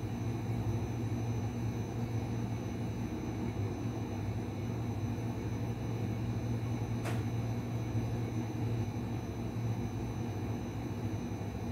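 Heavy construction machinery engine running steadily, a low even hum, with one short sharp click about seven seconds in.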